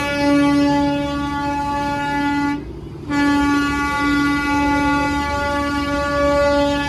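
Darjeeling Himalayan Railway toy train's whistle blowing in long blasts over a low rumble. It breaks off for about half a second roughly two and a half seconds in, then sounds again.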